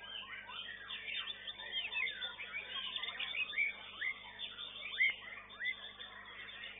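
Caged songbirds singing at a bird-song contest: a dense, overlapping mix of whistles and quick sweeping notes, with a few louder sharp whistles standing out near the middle and again about five seconds in.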